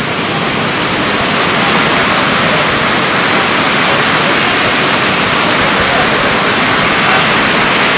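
Heavy ocean surf breaking and washing in steadily, a dense, even hiss without pauses.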